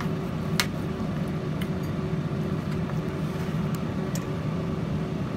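A metal spoon mixing sliced meat in its marinade in a container, giving a few light clinks, over a steady low rumble.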